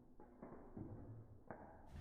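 Near silence with a few faint, muffled knocks.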